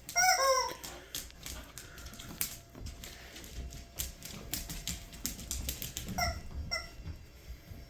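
Squawking rubber chicken dog toy being bitten by a dog: one long wavering squawk right at the start and two short squawks near the end. In between come many sharp clicks and taps.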